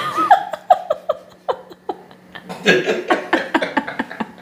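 People laughing in quick runs of short voiced bursts. There are two bouts, with a brief pause between them about two seconds in.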